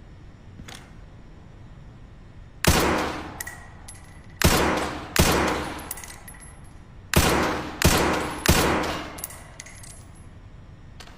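Six suppressed shots from a Springfield M1A semi-automatic rifle fitted with a cloth-wrapped suppressor: one shot, then two shots under a second apart, then three in quick succession. Each shot starts sharply and trails off over about a second.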